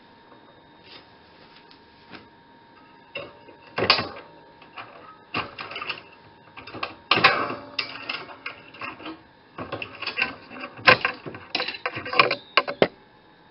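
Irregular metallic clicks and rattles of a band saw blade being worked loose from a clamped steel-bar brazing jig, with C-clamps being handled.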